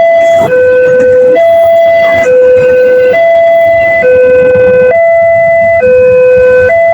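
Electronic two-tone warning siren of a railway level crossing, alternating steadily between a higher and a lower tone, each held just under a second.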